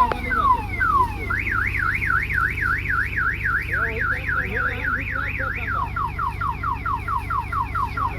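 An electronic multi-tone siren alarm cycles through its patterns. First come falling sweeps about twice a second. About a second in it switches to a fast warble rising and falling about three times a second, and near the end to quick falling chirps about four a second. A diesel engine runs steadily underneath.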